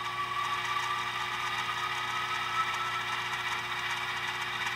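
Diesel engine sound from the Tsunami sound decoder in an HO scale Atlas RS-1, played through the model locomotive's small speaker. The engine sound swells at the start and carries a whine that rises slowly in pitch.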